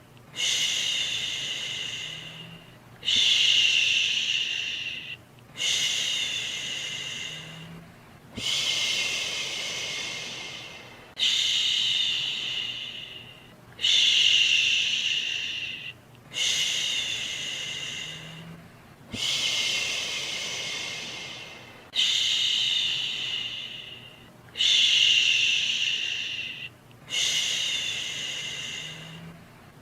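Soothing "shhh" shushing sounds for a baby, about eleven long shushes, each starting strong and tapering off, with brief pauses between them at an even pace.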